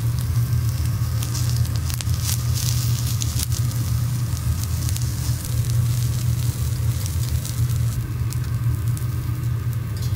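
Vegetables sizzling on a hot teppanyaki griddle, with scattered small pops, over a steady low rumble.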